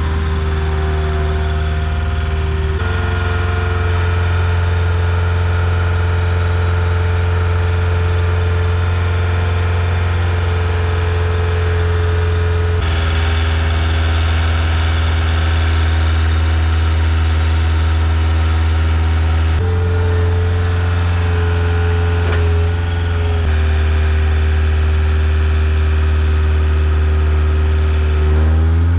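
Engine of the machine driving an auger to drill pier holes, running steadily under load; the engine note jumps to a different pitch several times.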